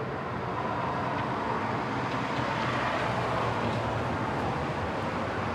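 Steady traffic noise, a wordless rush that swells a little toward the middle and eases off.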